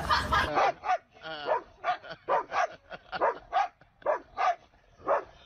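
A dog barking and yelping in a quick run of short calls, about two to three a second, one of them longer with a wavering pitch.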